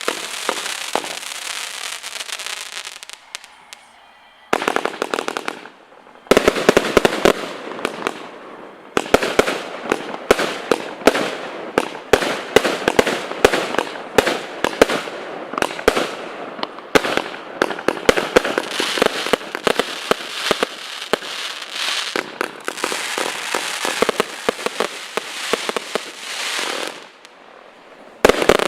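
A 216-shot multi-calibre compact firework cake firing in rapid succession: dense volleys of sharp shots and crackling bursts. There is a short lull about three to four seconds in, and another just before the end.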